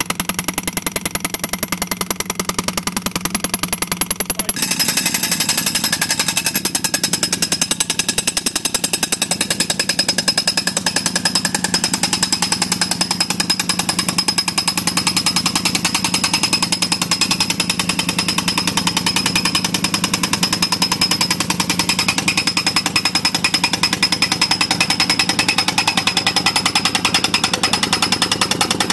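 Pneumatic moling machine (soil-piercing impact mole) hammering rapidly and without pause as it drives through the ground to pull the new poly water pipe. About four seconds in the hammering gets abruptly louder and brighter.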